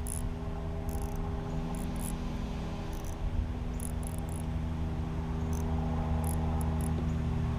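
Insects chirping in short, high, irregular bursts over a steady low hum.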